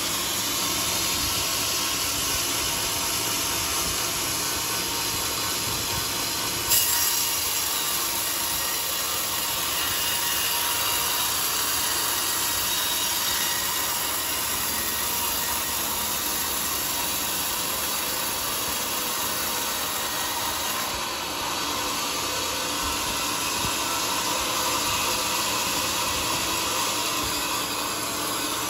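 Homemade band sawmill blade ripping lengthwise through a large teak log: a steady, dense sawing noise of the blade in the wood. There is one sharp knock a little under a quarter of the way in.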